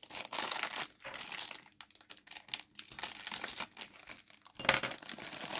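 Plastic bag crinkling as plastic model-kit sprues are handled and pulled out, in irregular rustles with a louder burst near the end.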